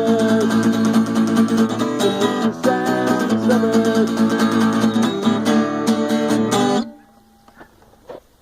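Acoustic guitar strummed in chords, playing the closing bars of the song, then stopping abruptly about seven seconds in. A faint short sound follows near the end.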